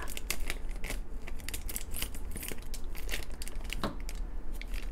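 Scissors cutting open a thin clear plastic toy bag, the plastic crinkling and crackling in quick irregular clicks, with one louder crackle about four seconds in.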